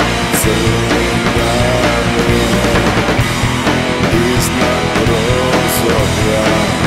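Live rock band playing an instrumental passage on electric guitars, bass guitar and drums, with three cymbal crashes: one near the start and two in the second half.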